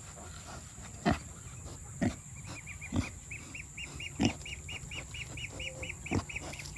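Pig eating a freshly pulled zucchini plant, with short sharp chewing and grunting sounds about a second apart. From about two seconds in, a high, even chirping repeats some four to five times a second.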